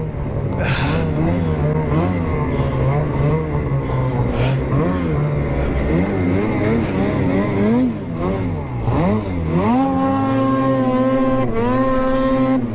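Ski-Doo 850 two-stroke snowmobile engine running under load, its pitch rising and falling with the throttle, then climbing about nine seconds in and holding a steady higher pitch.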